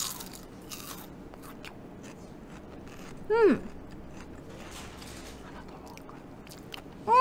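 Crunching and chewing of crisp, crab-shaped Kkotgerang snack crackers, seaweed flavour, strongest in the first second. A short falling hum of the eater's voice comes about three seconds in, and another near the end.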